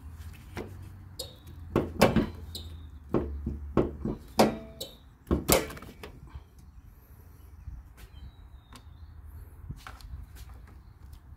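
Clicks and clunks of a Honda Odyssey's hood being unlatched at its safety catch and lifted open: several sharp knocks in the first half, then only faint handling ticks.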